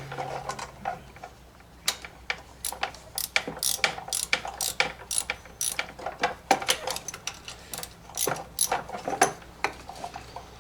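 Ratchet wrench clicking in short irregular runs, loosening the mounting screws of a small engine's ignition coil so the flywheel magnet can pull the coil down to set its air gap.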